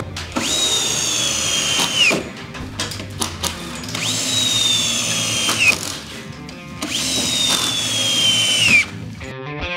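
Cordless drill driving long screws into the end of a softwood stud in three runs. Each time the motor's high whine sags slowly in pitch as the screw bites into the timber, then stops.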